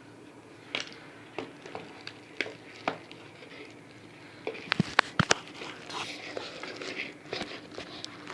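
Watch packaging handled by hand: scattered light clicks and taps, a quick cluster of sharp clicks about five seconds in, then rustling.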